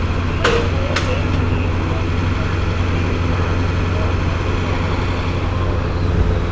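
Steady low engine hum of idling vehicles in street traffic. Two sharp clicks come about half a second apart, about half a second in, and a large SUV drives slowly past close by near the end.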